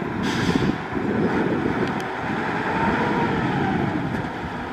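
Heavy construction machinery's diesel engine running steadily, a continuous low rumble.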